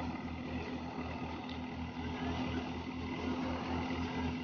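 Tractor-driven wheat thresher running steadily while wheat bundles are fed into its drum: a low engine throb beating about four times a second under a steady hum and the rush of the threshing drum.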